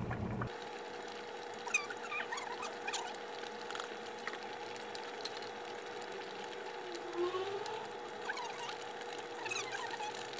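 Pot of pork back-bone stew simmering, with scattered small bubbling pops while a ladle stirs it, over a steady hum.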